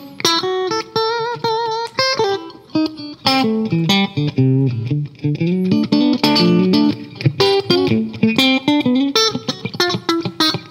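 Fender Stratocaster electric guitar played through a Fairfield Circuitry Accountant compressor pedal, switched on: a picked, melodic run of notes, with vibrato on a held note about a second in.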